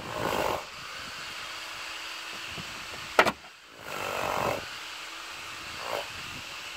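Plastic trim clip on a BMW trunk-lid liner being pried and levered, with scraping of plastic and one sharp snap about three seconds in, over a steady hum.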